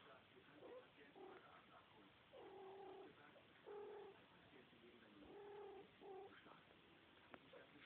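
Cat meowing faintly: four drawn-out, level-pitched calls in the middle stretch, the first the longest.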